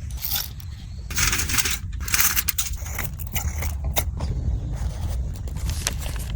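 Objects being handled: scattered sharp clicks and scrapes, with two longer hissing scrapes about one and two seconds in, over a steady low rumble.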